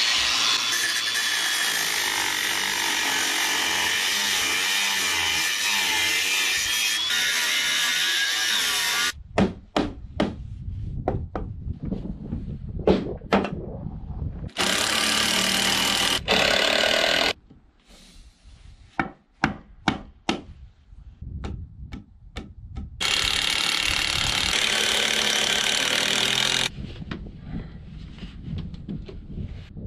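Power saw cutting through wood in three long runs: about nine seconds at the start, a short one of about three seconds in the middle and another of about four seconds later. Sharp knocks and taps on wood come between the cuts.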